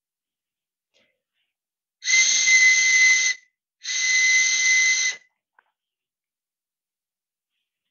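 A freshly shaped, unfired clay whistle tube, the mouthpiece part of a water whistle, blown twice as a test. Each blow is a breathy, steady whistle tone of a bit over a second, held on one high pitch with no warble, because the tube is not yet set into water.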